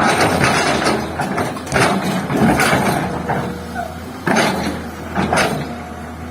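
Komatsu excavator's diesel engine running steadily, overlaid by loud, rough bursts of noise from the machine at work: several in the first three seconds and two shorter ones about four and five seconds in.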